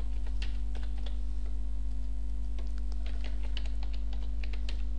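Computer keyboard keys typed in irregular runs of clicks as a username and password are entered, thinning out briefly in the middle, over a steady low electrical hum.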